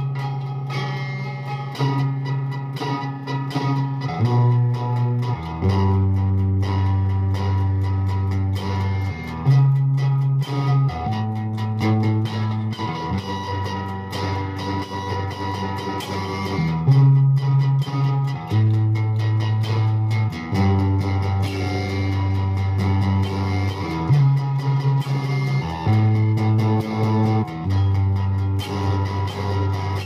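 Fender Jazzmaster with Seymour Duncan Quarter Pound pickups played through the Infanem Driving Notion pedal, switched on, into a Harmony 305a amp and a Hiwatt 2x12 cabinet with Eminence Wizard speakers. It plays held low notes and chords that change every second or two.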